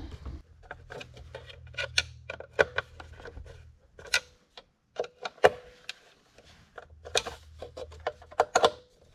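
Irregular sharp clicks and knocks of plastic parts and hand tools being handled as the covers go back onto a Homelite leaf blower; a few knocks ring briefly. A faint low hum comes and goes underneath.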